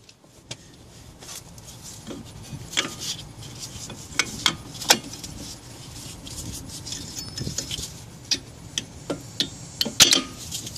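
Irregular light metallic clicks and clinks as new disc brake pads are handled and seated in a 1990 Buick LeSabre's front brake caliper, with a few sharper clicks scattered through.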